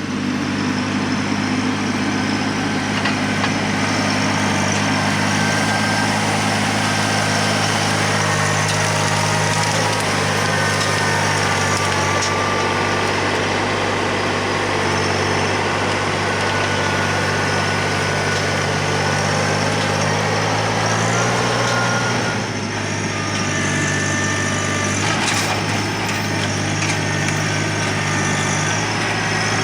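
TYM T264 compact tractor's diesel engine running steadily, its note and loudness dipping briefly about 22 seconds in.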